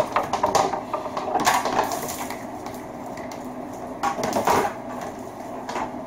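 Insulated copper wire being pulled through a benchtop wire stripping machine, its insulation slit open by the blade, with quick scraping and rattling of the wire against the machine. The rattling is busiest in the first two seconds, eases off, and comes back briefly a little after four seconds.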